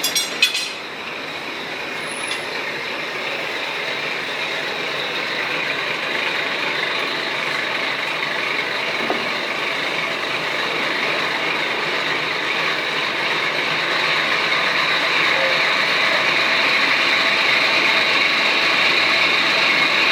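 A few sharp clicks, then a sheet-metal workshop machine running steadily, its mechanical running sound slowly growing louder.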